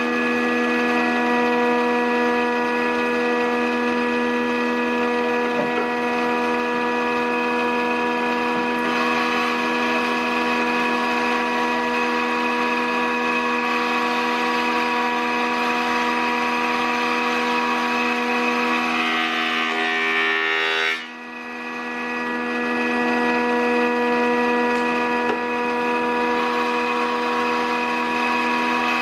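A JET JPM-13 13-inch planer/molder running with a steady whine while planing a 2x4. About twenty seconds in, the pitch bends and the sound drops sharply, then builds back up over a few seconds.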